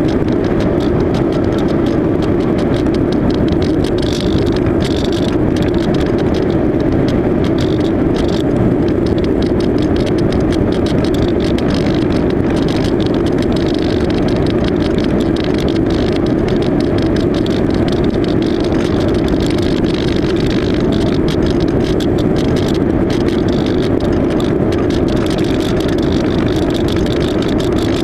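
Electric motor and pusher propeller of an AXN Floater-Jet RC plane running steadily in flight, a continuous drone with rushing noise over it.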